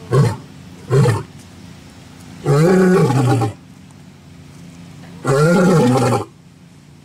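Male lion roaring: two short low grunts near the start, then two longer roars of about a second each, a few seconds apart, each rising then falling in pitch.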